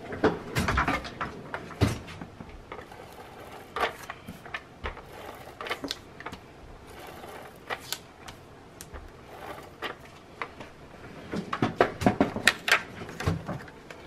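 A white paper card being handled and its edges rubbed and tapped with an ink pad. Scattered light taps, scrapes and paper rustles come in two busy spells, one at the start and one near the end.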